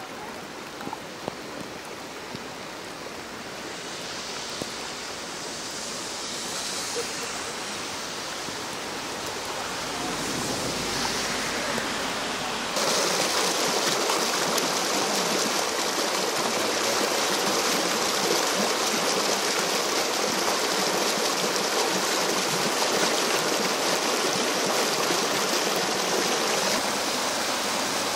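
Muddy storm runoff rushing along a street gutter as a steady rush of water. It becomes suddenly louder about 13 seconds in.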